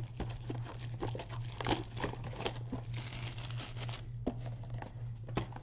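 Clear plastic shrink wrap crinkling and tearing as it is peeled off a trading-card blaster box, with many small crackles and clicks.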